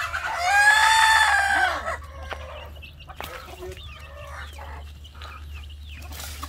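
A rooster crows once, loudly, for about a second and a half, its pitch rising and then falling. After that, chickens cluck softly with a few scattered clicks, and there is a short, sharp noise near the end.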